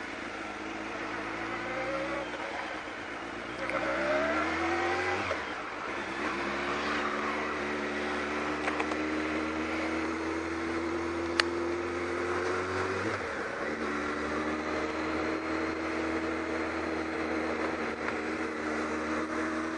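Kawasaki ZX-12R's inline-four engine pulling through town traffic, heard from the rider's position with wind and road noise. Its pitch climbs and drops sharply a little after five seconds and again about thirteen seconds in as it changes up through the gears, then holds steady. A single sharp click comes about eleven seconds in.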